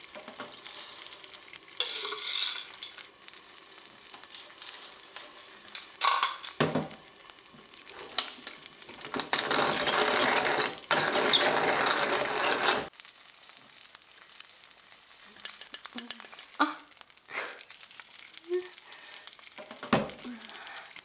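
Coffee beans rattling into a hand-cranked coffee mill, then the mill grinding them for about four seconds with a dense, gritty crunching rattle, the loudest part. Light clicks and taps follow as the grounds are handled.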